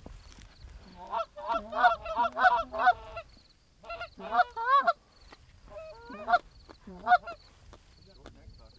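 Goose honks and clucks in three or four bursts of quick calls that rise and fall in pitch, with short gaps between bursts. The calls thin out after about seven seconds.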